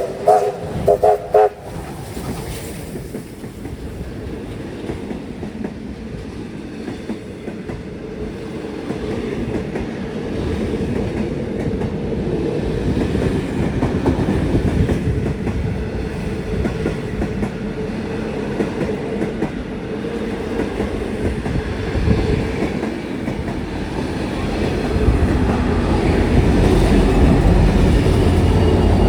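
A heritage train hauled by locomotives R761, N452 and A66 running by: a few short toots from a locomotive about a second in, then steady rumble and wheel clatter on the rails, getting louder near the end.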